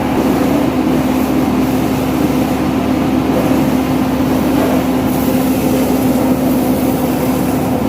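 Engine of a self-loading concrete mixer running steadily at a constant speed, with a steady hum.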